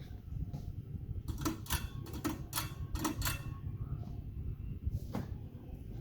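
Hunter ceiling fan running with a steady low rumble of moving air. A quick run of about eight light clicks comes about a second in, and one more near the end.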